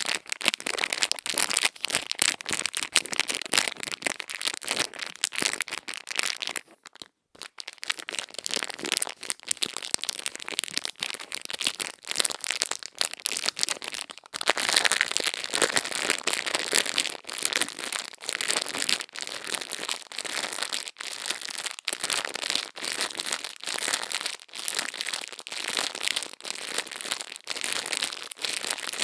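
Close-miked ASMR ear-cleaning sounds: continuous crisp crackling and scratching as tools work against the microphone's ear, with a brief pause about seven seconds in.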